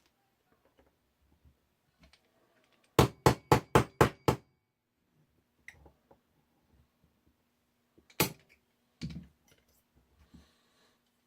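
Hammer tapping a punch to drive out the trigger pin of a Smith & Wesson 469 pistol frame: a quick run of six sharp taps about three seconds in, then two single taps later on.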